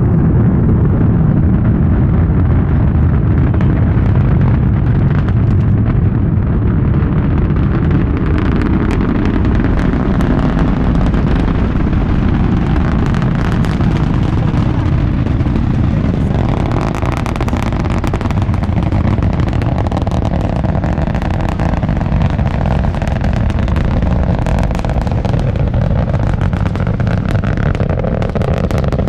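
SpaceX Falcon Heavy rocket's 27 Merlin engines at liftoff: a loud, deep, continuous rumble that takes on a harsh crackle, with rapid sharp pops spreading up into the treble from about eight seconds in.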